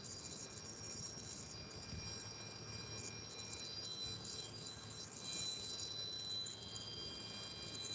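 Faint background of several thin, high, steady tones sounding together, each holding for a second or more and switching on and off at different times, over a low hum.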